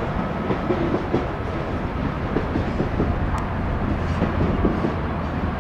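Freight train rolling past, the cars' wheels clattering on the rails. The low drone of a mid-train Union Pacific EMD SD70ACe distributed-power diesel locomotive grows stronger near the end.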